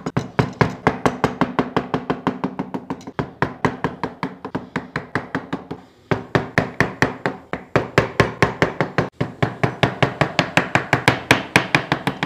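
Wood chisel driven by a mallet in fast, even blows, about five or six a second, cutting away wood around a circle left in relief, with a short break about six seconds in.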